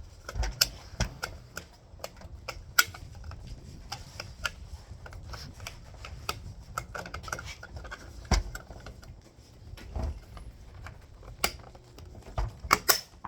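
Irregular light clicks, taps and knocks of small hard gear being handled, with a quick cluster of sharp clicks near the end.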